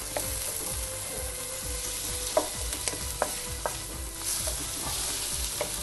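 Chicken tikka pieces and vegetables sizzling in a wok of spiced sauce while a wooden spatula stirs them, with a steady frying hiss and a few sharp knocks of the spatula against the pan.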